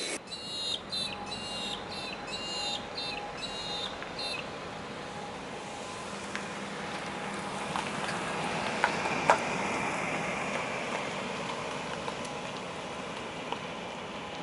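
A bird calling in a quick series of short repeated chirps, about two a second, for the first four seconds or so. Then a steady rushing noise swells to a peak about ten seconds in and slowly eases, with a few faint clicks.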